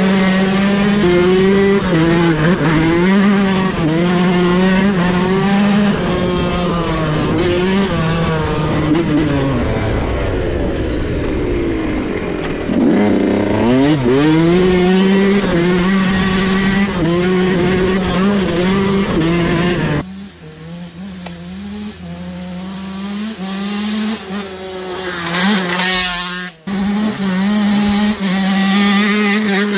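Yamaha dirt bike engine running under the rider, heard up close from the bike itself; the engine note drops away about a third of the way in and climbs again as the throttle reopens. About two-thirds of the way through, the sound cuts suddenly to a quieter dirt bike engine heard from the side of the track.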